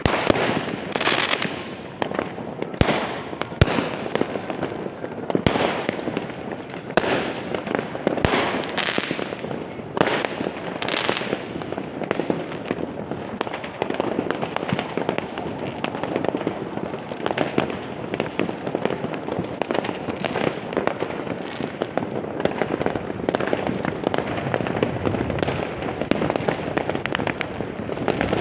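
Many fireworks and firecrackers going off at once: a constant dense crackle with sharp bangs breaking through, the loudest bangs coming thickly in the first ten seconds or so.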